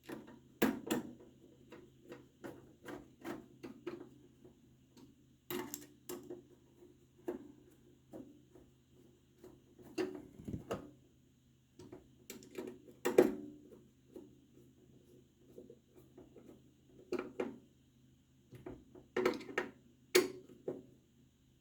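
Irregular clicks, taps and knocks of computer hardware being handled, a hard drive and PC case parts, with a faint steady low hum underneath. The loudest knock comes about 13 seconds in.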